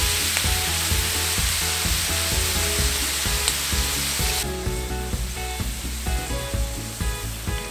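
Fresh lime juice hitting a hot steel plow-disc discada with shrimp and pineapple, sizzling with a loud steady hiss. About four and a half seconds in the hiss drops away to a quieter sizzle, with light background music underneath.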